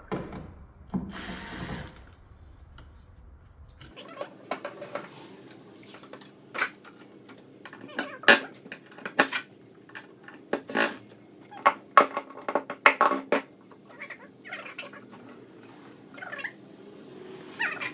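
Scattered clicks, knocks and squeaks of hand work on a car's plastic interior trim, unscrewing and working a panel loose, with several sharp loud knocks in the middle.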